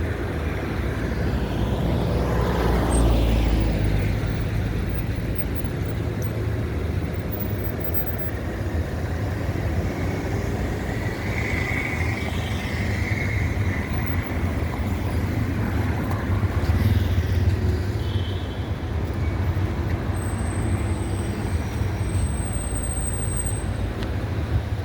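Street traffic: a steady low rumble of cars and engines, with one vehicle passing close a few seconds in.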